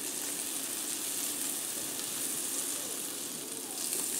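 Butter sizzling steadily as it melts and bubbles in a preheated cast iron skillet.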